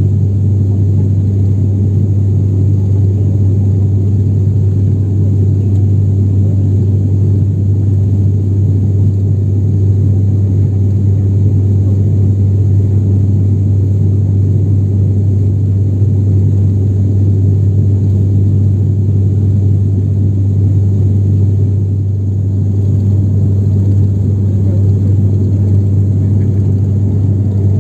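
Cabin drone of an ATR 72-600 turboprop in flight: its engines and propellers make a loud, steady low hum of constant pitch with a rumble over it.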